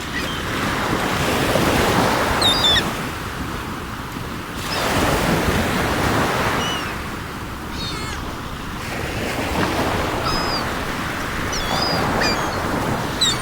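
Sea waves breaking and washing up the shore in three surges, with seagulls calling in short, high cries now and then above the surf.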